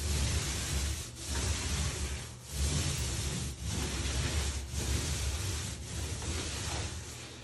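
Paint roller on an extension pole rolling wet paint onto a wall: a rough, rubbing hiss in repeated strokes, about one a second, each broken by a brief pause as the roller changes direction.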